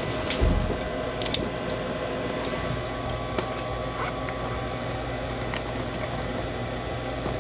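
Furnace draft inducer motor running with a steady hum and whine, with a low thump near the start and a few sharp clicks of tools and hoses being handled.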